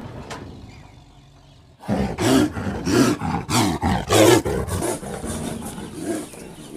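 A tiger snarling and roaring in several loud bursts, starting about two seconds in and lasting some two and a half seconds, as it charges out of its release crate.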